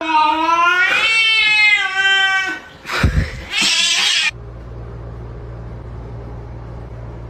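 A cat's long drawn-out meow, rising and then falling in pitch over about two and a half seconds. A short rushing, hiss-like noise follows, then a low steady hum.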